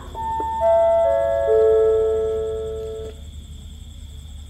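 Public-address chime of four descending notes, each entering in turn in the first second and a half and ringing on, all cutting off together about three seconds in. It closes a loudspeaker announcement.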